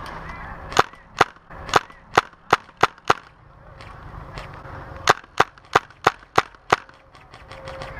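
Airsoft rifle, a Tippmann M4 on high-pressure air, firing sharp semi-automatic shots in two quick strings: seven shots, a pause of about two seconds, then six more.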